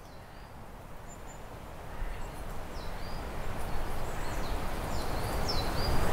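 Outdoor ambience: several short bird chirps over a steady rushing noise that swells steadily louder.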